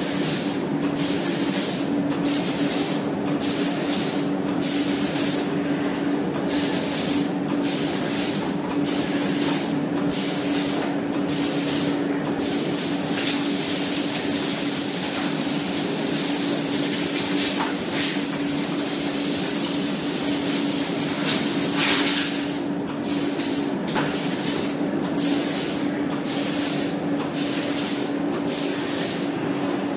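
Robot-mounted spray gun hissing in short on-off bursts, roughly one a second, with one long unbroken spray of about nine seconds in the middle, over a steady low hum.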